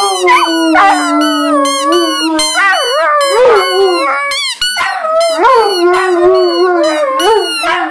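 Several Irish wolfhounds howling together. Long low drawn-out howls are held under higher, shorter, yelping howls, with a brief break about halfway through.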